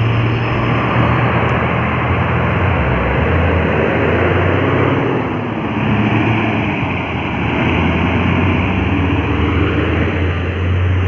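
Heavy vehicle's diesel engine labouring up a steep climb, loud and steady with a deep hum and road noise.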